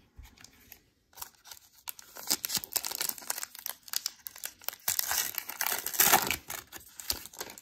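Foil wrapper of a baseball card pack being torn open by hand: a dense run of crackling rips and crinkles that starts about a second in and is loudest near the end.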